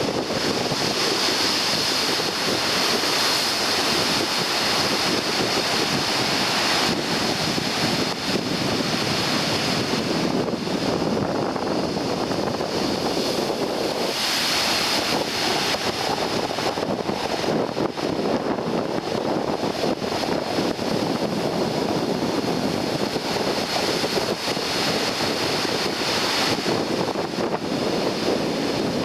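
Rough sea surf breaking continuously on the shore, whipped up by an approaching typhoon, with strong wind buffeting the microphone.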